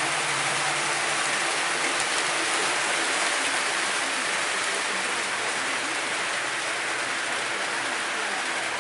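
Model trains running on metal track: a steady rushing rumble of many wheels rolling, with a faint low hum from the motors.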